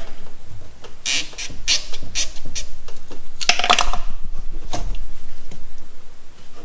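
Short clicks and knocks of hands and metal working a power steering suction hose loose at its fitting, with a louder scraping burst about three and a half seconds in.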